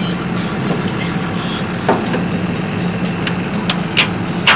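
Tractor engine idling steadily, with a few sharp metal knocks as a steel bar is handled and fitted into its bracket, the loudest near the end.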